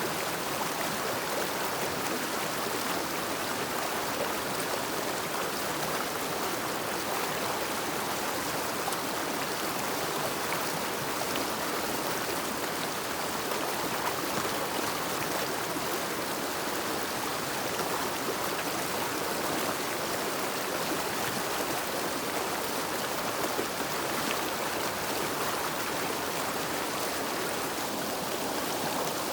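River water flowing in a steady, even rush, with no pauses or changes.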